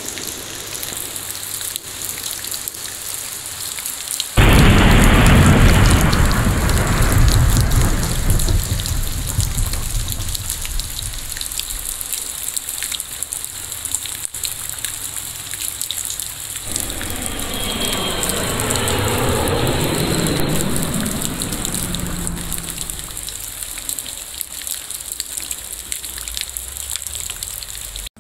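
Heavy rain falling steadily, with a sudden loud clap of thunder about four seconds in that rumbles away over several seconds. A second long rumble starts around seventeen seconds in and fades out.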